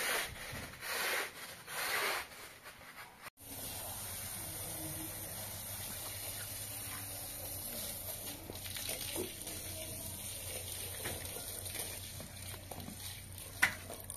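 A floor squeegee swishes over a wet, soapy rug in strokes about a second apart. Then comes a steady rush of water from a garden hose pouring onto the rug, with one sharp click near the end.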